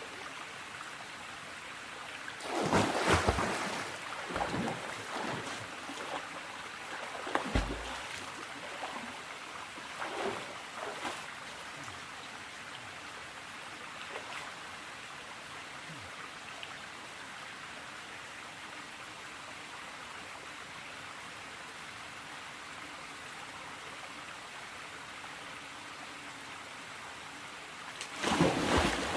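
Stream water running steadily, with louder bursts of splashing about three seconds in, around seven and ten seconds, and near the end as someone moves in the cold, fairly deep water.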